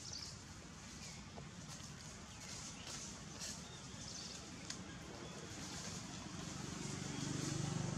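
Outdoor ambience: faint high chirping and light clicks over a low hum that grows louder over the last two seconds.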